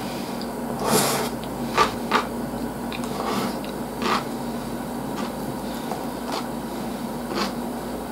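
A person chewing a mouthful of sushi roll, with a few short wet smacks at irregular moments, over a steady low hum.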